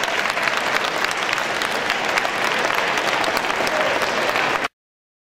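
Ringside audience applauding: many hands clapping steadily at once. The sound cuts off abruptly near the end.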